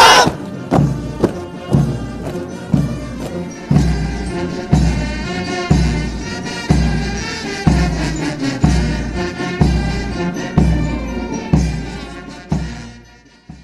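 Music with a heavy drum beat about once a second under sustained chords, fading out near the end.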